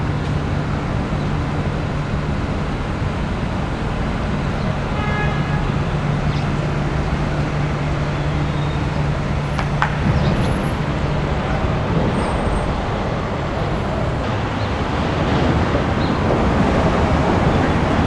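City street traffic noise: a steady low engine hum for about the first eleven seconds over the continuous wash of passing cars, with a brief high-pitched tone about five seconds in.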